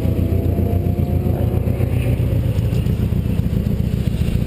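Overheated drift car's engine idling with a rough, steady rumble, sounding like a tractor.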